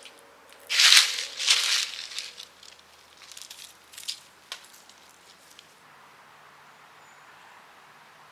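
Several short bursts of rustling, the loudest two about a second in, followed by softer rustles and a few light clicks, then quiet.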